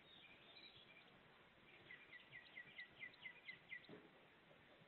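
A bird singing faintly: a quick run of about ten high, down-sloping chirps, about five a second, starting about two seconds in and lasting about two seconds, over a low steady hiss.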